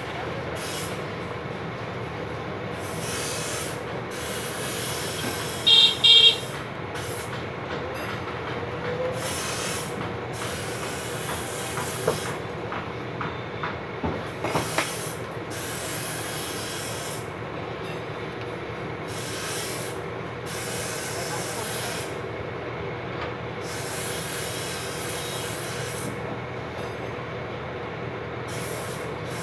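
Steady background rumble and hiss, with two short, loud, high beeps about six seconds in and a few light clicks between about twelve and fifteen seconds.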